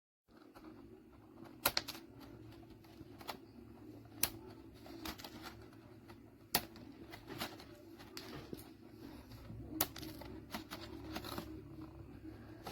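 Scattered sharp clicks and taps, about ten at irregular intervals, over a steady low hum.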